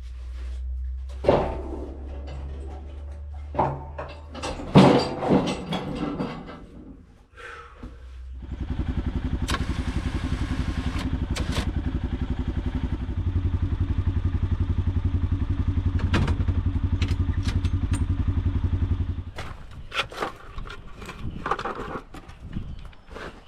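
Metal knocks and clatter, as of a snow plow being taken off an ATV, then the ATV's engine running steadily from about a third of the way in, louder from about halfway, and stopping near the end, followed by more knocks.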